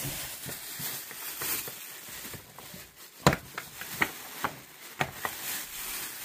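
White plastic bag rustling and crinkling as an item is pulled out of it by hand, with a few sharper crackles in the second half.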